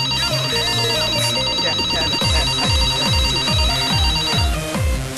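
Telephone ringing with a fast electronic trill, which stops shortly before the end. Under it runs electronic dance music, with deep kick drums about three a second coming in about two seconds in.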